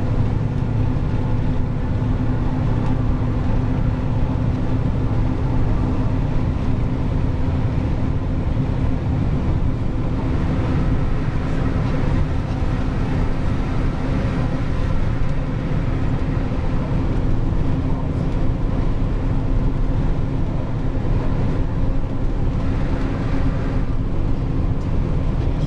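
Dump truck's engine running at a steady pace while driving, with road noise: an unbroken drone with a steady hum.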